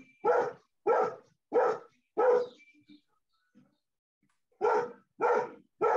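A dog barking repeatedly, about one bark every two-thirds of a second: four barks, a pause of about two seconds, then three more.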